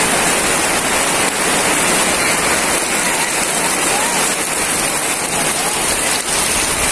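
Steady rain falling, pattering on the canvas and plastic tarpaulin roofs overhead.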